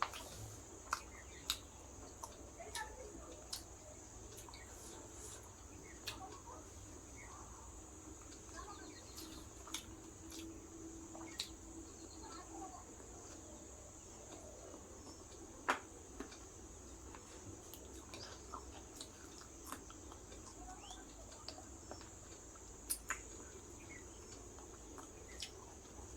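Close-miked eating sounds from a meal of rice and curry: irregular wet clicks and lip smacks of chewing, with a few louder smacks, over a steady faint hiss.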